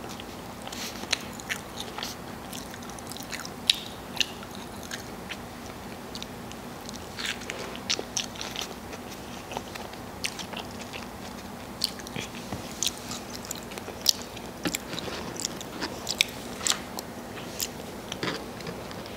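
A person biting into and chewing a cheeseburger, with many short, irregular mouth clicks and smacks.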